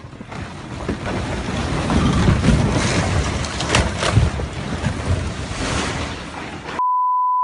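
Rockfall: a heavy, rumbling crash of collapsing rock with sharp cracks, building up and then easing off. Near the end it cuts abruptly to a steady censor bleep.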